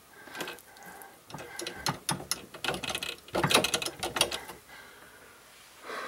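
Copper pipe and fitting handled by hand as the pipe is worked into the joint: irregular spells of small metallic clicks and scraping.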